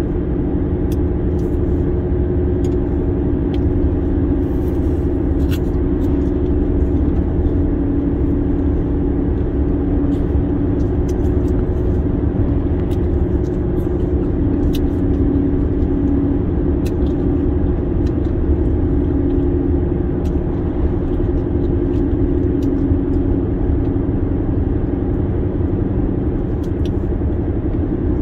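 Car driving steadily at highway speed: a continuous, even hum of engine and tyres on the road.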